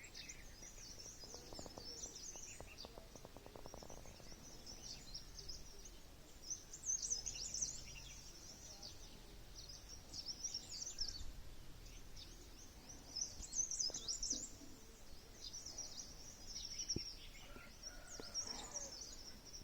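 Songbirds chirping and twittering: many short, high-pitched calls overlapping throughout, over a faint steady background hiss. A short, rapid clicking comes about two to four seconds in.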